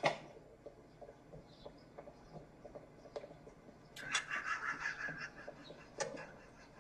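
A man stifling a laugh: breath hissing and snorting through clenched teeth, starting about four seconds in, with another short burst near the end.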